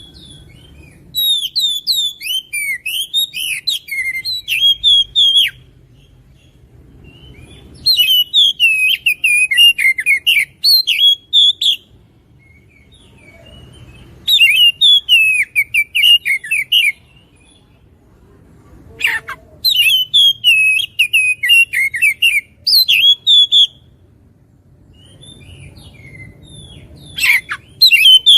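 Oriental magpie-robin (kacer) singing in bursts of a few seconds each: fast, varied chirps and whistles, four full phrases with short pauses between and a fifth starting near the end.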